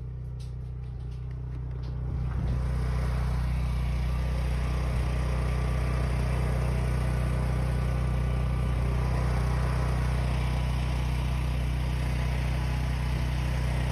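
A steady low engine hum under a broad rushing noise that grows louder about two seconds in.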